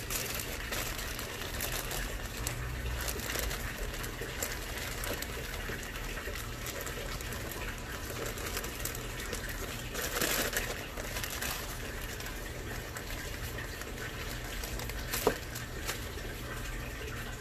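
Thin clear plastic bag crinkling and rustling as the board and its wire leads are handled and unwrapped, with a louder stretch of rustling about ten seconds in and one sharp click about fifteen seconds in.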